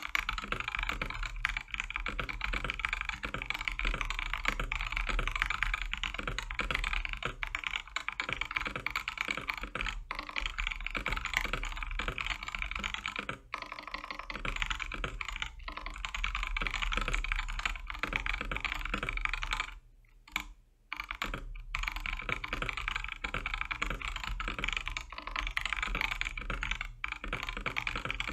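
Continuous fast typing on a Keychron K4 mechanical keyboard, a steady stream of keystrokes that stops briefly about 20 seconds in.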